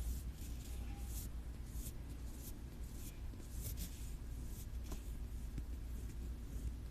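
Close-up ASMR scratching on an object: short, irregular scratching strokes, several a second, over a low handling rumble.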